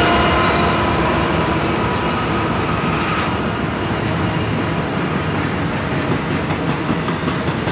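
A BNSF double-stack container freight train passing close by: the locomotives' steady, loud running with high whining tones fades over the first three seconds as they move away. It gives way to the rumble and rhythmic clatter of the stack cars' wheels on the rails.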